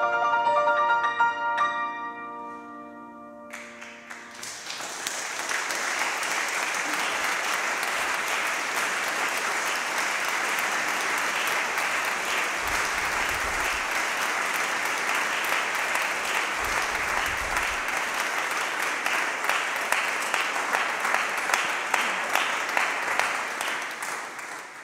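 A soprano's last held note and the final piano chord die away. About three and a half seconds in, audience applause starts and carries on steadily, fading out at the very end.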